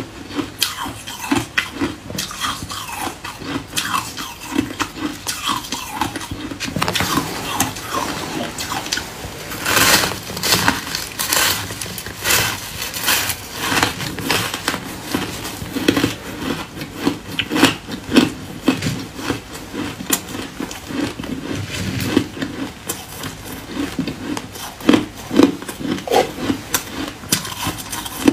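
Close-miked crunching of compacted shaved ice being bitten and chewed: a run of irregular crisp crunches, densest and loudest about a third of the way in.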